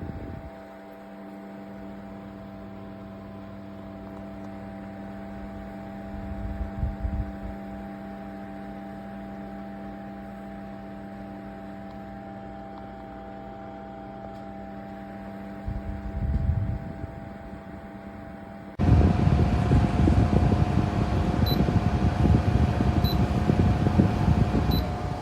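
Small battery-powered personal air-cooler fan running with a steady motor hum, with two brief low thumps along the way. About 19 seconds in, the sound jumps abruptly to a much louder rush of air with a higher steady whine, and faint regular ticks come about every second and a half.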